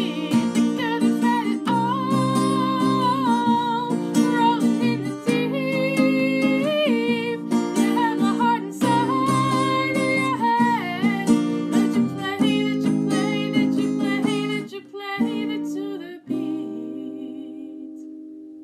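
A young girl singing a pop song solo to acoustic guitar chords. About sixteen seconds in the singing stops and a final chord rings on, fading away to end the song.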